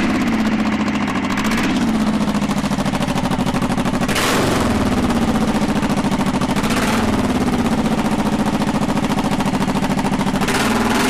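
Honda Shadow V-twin cruiser engine running through twin chrome exhaust pipes, idling with a rapid pulsing beat. It is revved briefly about five times.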